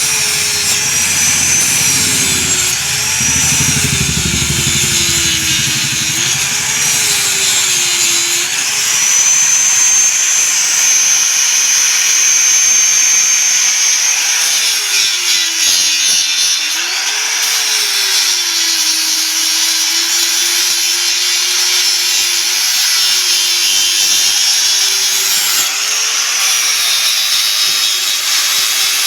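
Electric grinder grinding steel, running steadily with a loud grinding hiss. Its motor pitch sags and recovers again and again as the work is pressed against it.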